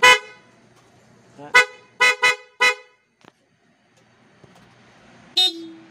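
Scooter horn, a newly fitted PIAA horn on a Honda PCX 160, tooted in short beeps: one at the start, a quick run of four about a second and a half in, and another near the end joined by a lower steady tone.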